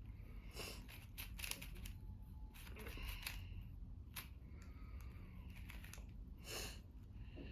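Layers of a magnetic 4x4 speed cube being turned by hand: quiet, irregular clicks and clacks.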